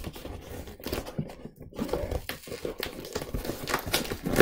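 Knife cutting the packing tape on a cardboard box, with scraping and rustling and irregular small clicks.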